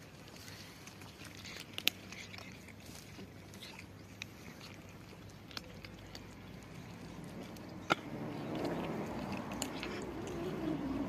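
Several kittens crunching dry kibble: scattered small crunches and clicks, with a sharper click about two seconds in and another about eight seconds in. From then on a low rumbling noise rises under the crunching.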